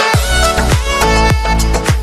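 Background music with a steady beat: a deep bass and kick drum come in just at the start, under a melodic instrumental line.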